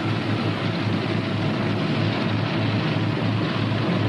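Northrop P-61 Black Widow's two Pratt & Whitney R-2800 radial engines running steadily on the ground while warming up, with a low rumbling pulse under an even roar.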